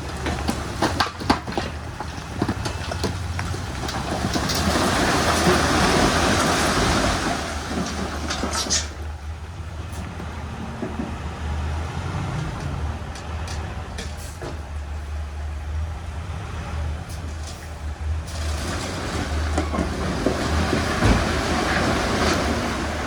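Heavy earthmoving machinery working: a steady low engine rumble with scattered clanks and rattles. It swells louder twice, about four seconds in and again near the end.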